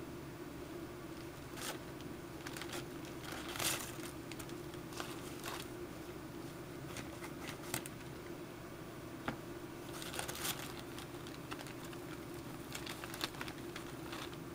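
Clear plastic bag worn over the hand as a glove, crinkling now and then as leather dye is worked onto the sheath, loudest a few seconds in and again about ten seconds in. A steady low hum runs underneath.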